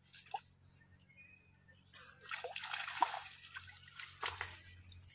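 Water splashing and dripping as a bamboo-framed lift net is hauled up out of a pond, heaviest from about two seconds in until just past four.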